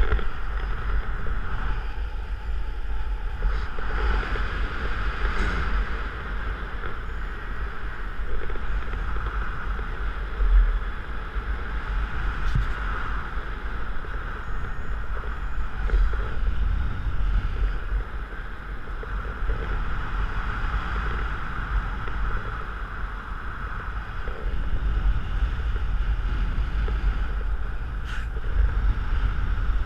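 Wind of paraglider flight buffeting an action camera's microphone: a steady low rumble with a rushing hiss.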